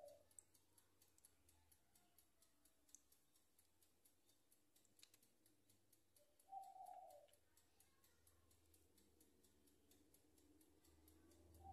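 Very quiet sounds of thick cake batter being spooned off a silicone spatula into a loaf pan, with one soft plop of batter about two-thirds of the way through. A faint, fast, even ticking runs underneath.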